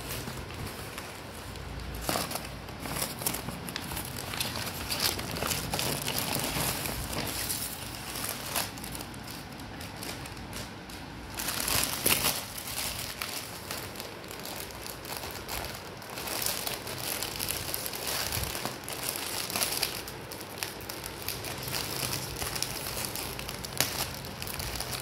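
A brown paper mailer bag and the thin clear plastic bag inside it crinkling and crackling as they are handled and opened, in irregular bursts, loudest a little under halfway through.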